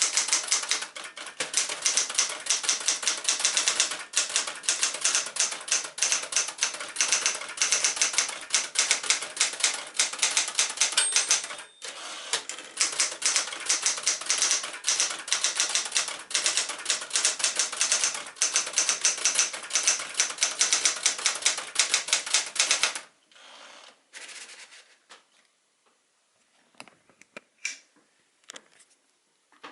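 1973 Smith-Corona Sterling manual typewriter being typed on fast, a rapid clatter of typebar strikes with a short pause about twelve seconds in. About twenty-three seconds in the typing stops, leaving only a few faint clicks.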